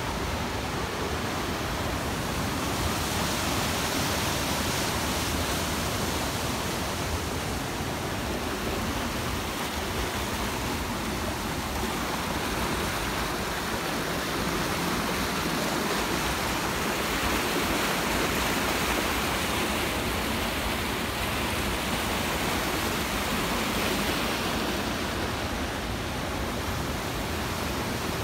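Creek water rushing over a small concrete weir and down shallow rapids: a steady, even rush of churning white water.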